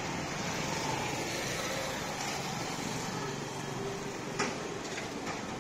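Street traffic: motorcycles and motorized tricycles running along the road in a steady murmur, with one short sharp click a little over four seconds in.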